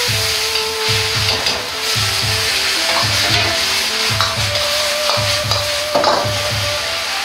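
Sauce sizzling and bubbling in a hot iron wok while a wok ladle stirs in potato-starch slurry to thicken it, with a few scrapes of the metal ladle against the pan. Background music with a steady bass beat plays underneath.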